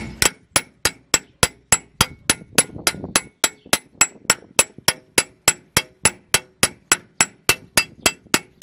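Hammer peening the edge of a hard Austrian scythe blade on a small peening anvil (babka) set in a wooden block: steady, even blows about three and a half a second, each with a bright metallic ring, stopping near the end. This is the first peening pass, drawing out the steel of the edge before the cutting edge itself is formed.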